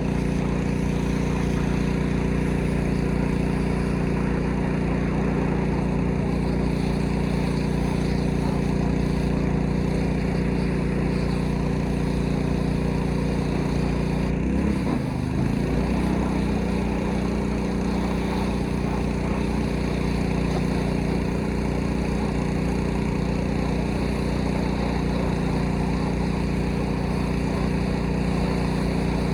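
Small gas engine of a pressure washer running steadily under load, with the hiss of the spray. About halfway through, its pitch wavers briefly, then settles back.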